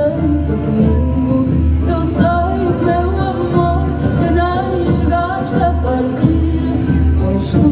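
A band playing a song with a lead singer, over a steadily pulsing bass line.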